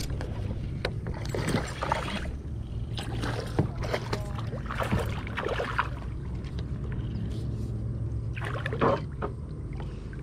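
Water splashing and sloshing around a kayak in irregular bursts as a hooked largemouth bass is reeled in and brought alongside, with a few short clicks, over a steady low rumble.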